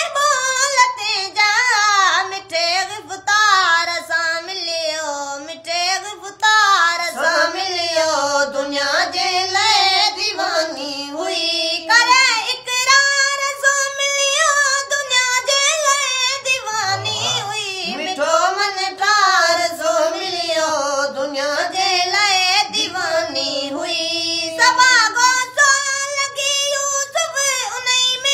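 A boy singing a Sindhi naat, a devotional song, in a single solo voice with a wavering, ornamented melody.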